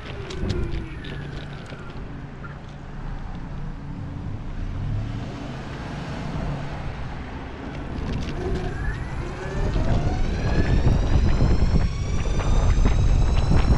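Electric skateboard rolling on asphalt: a steady low rumble of the wheels on the road with wind on the microphone, and a motor whine that glides up and down in pitch. From about ten seconds in it gets louder and a high whine rises steadily as the board speeds up, with scattered clicks over the road surface.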